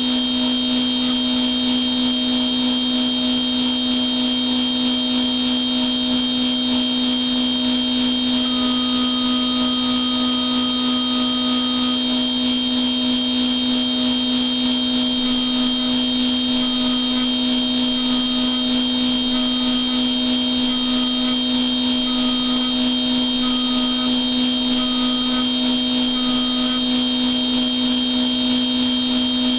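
Machine tool running with a steady two-tone whine, one low hum and one high whine. Partway through, a fainter mid-pitched tone is held for a few seconds, then comes back as short pips about every second and a half.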